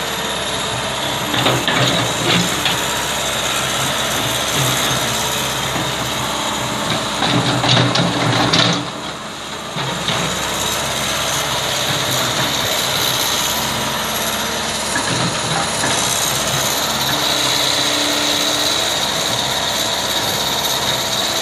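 Backhoe's diesel engine running steadily, pulling harder with louder surges and clanks about two seconds in and again around eight seconds.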